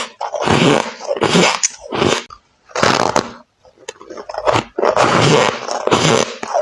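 Close-up bites and chews into squeaky ice, a run of loud crunching, squeaking bites about a second apart with a short pause around four seconds in.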